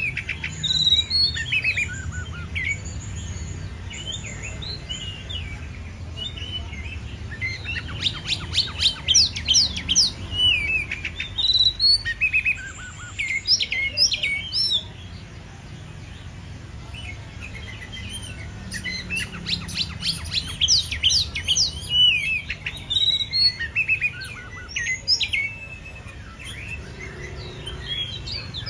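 Oriental magpie-robin (kacer) in full song, 'gacor': loud, varied phrases of clear whistles and rapid chattering sweeps, in several dense bursts with quieter pauses between. A steady low hum runs underneath.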